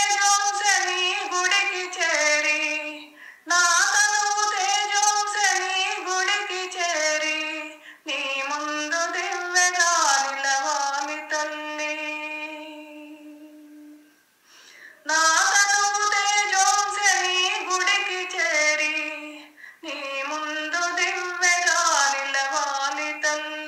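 A woman singing a Telugu devotional song with no accompaniment, in long phrases that end on held notes, with short breaks between phrases.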